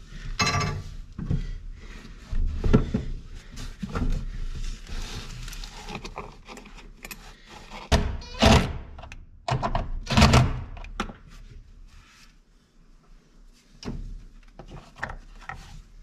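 Knocks and clunks of bolts and washers against a plastic center console. About eight and ten seconds in, a cordless driver runs in two short bursts, driving the bolts that hold the console down into rivet nuts in the floor.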